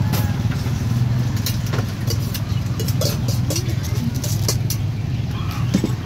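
Busy street-stall background: a steady low motor hum with scattered sharp clinks of metal utensils and faint voices.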